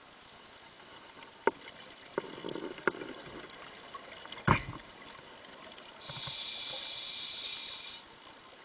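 Underwater scuba sounds: a few sharp clicks and knocks in the first half, with a louder thump about four and a half seconds in. From about six seconds a steady two-second hiss with a whistling edge follows, a breath drawn through the diver's regulator.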